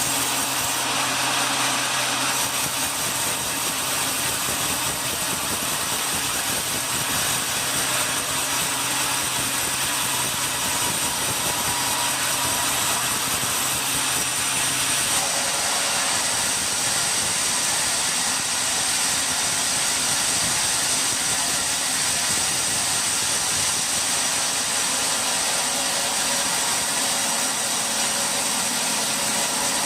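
Sawmill machinery running steadily in a constant mechanical drone, with a change in tone about halfway through as a low hum drops out and the high hiss brightens.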